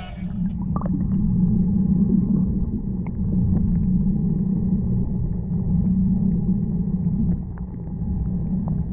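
Low, muffled rumble of water picked up by a camera underwater in its housing, with a faint steady high tone above it.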